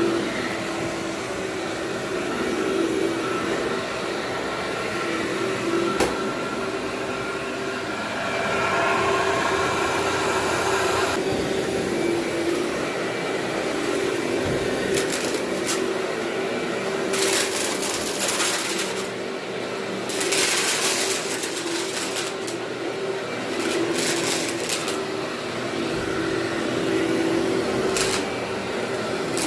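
Vacuum cleaner running with a steady whining hum. From about halfway on come several short bursts of hissy crackling, typical of dirt and grit being sucked up.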